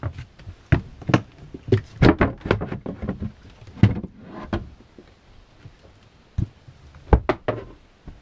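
Irregular knocks and clunks, a dozen or so sharp ones with quieter handling between, as a yacht's cabin floor hatch and the gear around it are moved.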